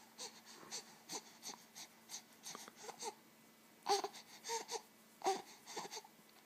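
Two-month-old baby making a string of short, breathy vocal sounds, with a few louder ones about four and five seconds in.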